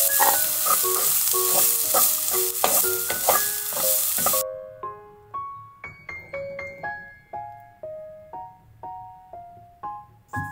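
Chopped onions hitting hot oil in a frying pan and sizzling loudly, then cutting off suddenly about four seconds in. Light keyboard background music plays throughout and carries on alone after the sizzle stops.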